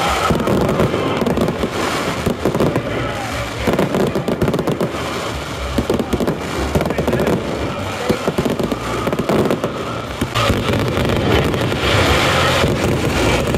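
Fireworks display going off in a dense, continuous run of bangs, pops and crackling, with crowd voices beneath.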